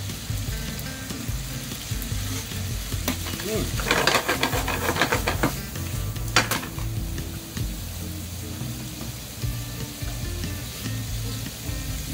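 Shrimp and linguine sizzling in olive oil in a frying pan on a gas burner. About four seconds in the sizzle grows into a louder, denser crackle as the pan is tossed, then there is a sharp knock of the pan, and the sizzle settles back to a steady hiss.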